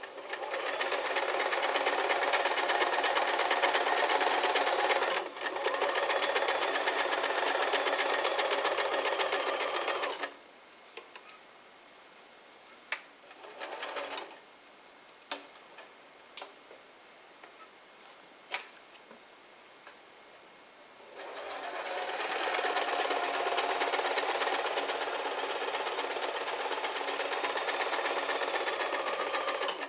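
Kenmore 12-stitch electric sewing machine running at a steady speed as it sews decorative stitches, with a brief stop about five seconds in. It then stops for about ten seconds, leaving scattered clicks and one short spurt of running, before it sews steadily again for the last nine seconds or so.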